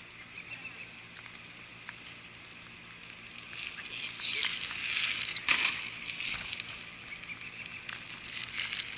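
Bicycle tyres hissing and crackling over wet pavement as riders pass close by, swelling in the middle with a sharp click about five and a half seconds in.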